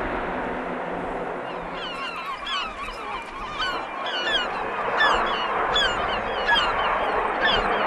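The Avro Vulcan's four Olympus jet engines give a steady roar overhead, swelling again about five seconds in. Over it, from about a second and a half in, birds give many short, hooked squawking calls several times a second.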